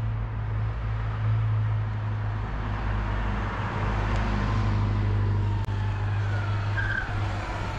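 Electric dirt bike riding along a street: steady wind and road rumble with the motor's thin whine, which slides down in pitch over the last few seconds as the bike slows.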